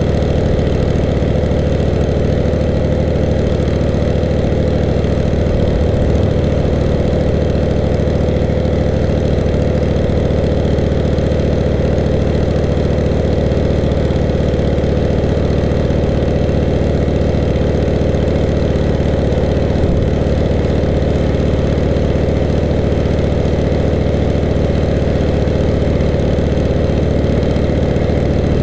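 Petrol-engine pressure washer (water blaster) running steadily at a constant speed, with no change in pitch or level, while it feeds the spray wand.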